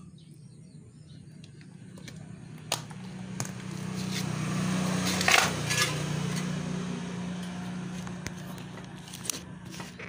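An engine passing by, growing louder to a peak about halfway through and then slowly fading, with a few sharp clicks.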